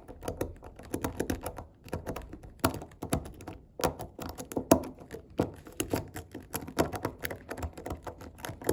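Rapid, irregular clicking and scraping of a steel lock pick and tension wrench working the security pins inside a CISA 160/50 padlock, with a sharper click about two-thirds of the way through.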